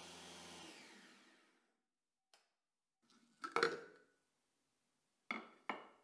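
Electric mini chopper pulsed briefly to grind pistachios: the motor whirs for under a second, then winds down with falling pitch. After it come a clatter of knocks, the loudest sound, and two sharp knocks near the end, from handling the chopper.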